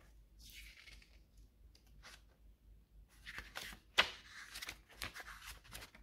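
Paper instruction booklet handled and its pages flipped: a soft sliding rustle at first, then a run of crisp page rustles and crinkles, with one sharp paper snap about four seconds in.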